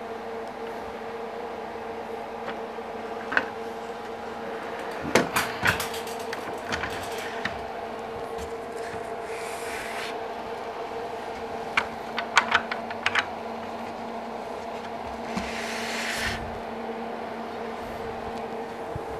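Handling noise from a circular saw being fitted to a Kreg Accu-Cut sled on its aluminium guide track: scattered clicks and knocks, bunched about five and twelve seconds in, and two short sliding rubs around ten and sixteen seconds in, over a steady low hum.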